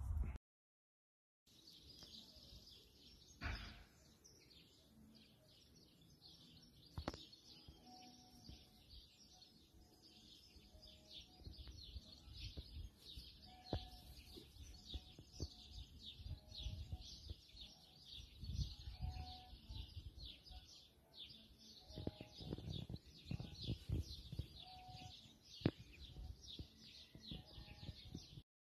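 Many small birds chirping steadily from the surrounding trees, a dense scatter of short high chirps with a few lower whistled notes, and occasional soft low thumps.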